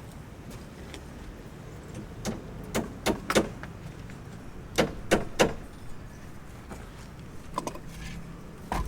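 Irregular sharp knocks and clanks in small clusters of two or three, over a low steady background hum.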